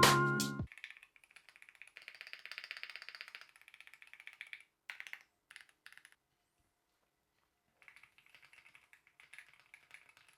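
Typing on a Keychron Q4 HE keyboard with Hall-effect magnetic switches: a quick run of soft keystroke clicks, a few separate key presses, a pause of about a second and a half, then more typing. Background music cuts off in the first moment.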